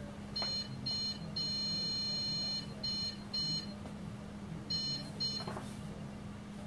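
Epax X1 resin 3D printer's buzzer sounding a string of about seven high electronic beeps of uneven length, the longest held for about a second, while its screen firmware update runs. A low steady hum lies underneath.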